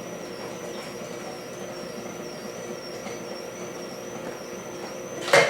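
Greenstar twin-gear juicer's motor running steadily with a low hum and a faint, wavering high whine above it.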